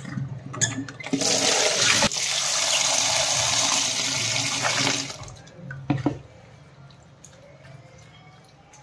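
Water running into a bowl for about four seconds as fenugreek leaves are given a fresh rinse, set off by a few sharp knocks before and after.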